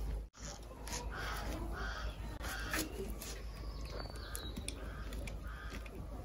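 A string of short, harsh bird calls, repeated at a steady pace a little under two a second, over faint scraping clicks.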